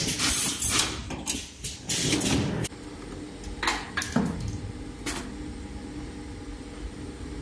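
Stainless-steel wire ring making and butt welding machine at work: a run of loud clattering, hissing bursts, then three sharp clacks about half a second to a second apart, settling into a steady machine hum.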